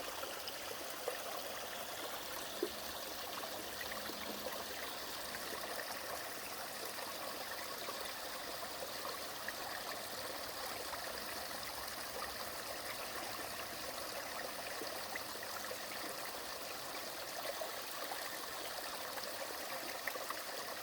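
Snowmelt water cascading down a small three-tiered mountain-stream waterfall: a steady rush and splash, with a couple of sharper splashes in the first few seconds.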